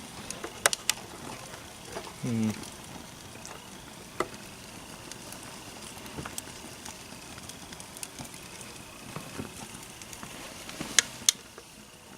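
A burning plastic alarm clock and its melting cord crackling over a steady hiss, with sharp pops scattered through it, the two loudest close together near the end.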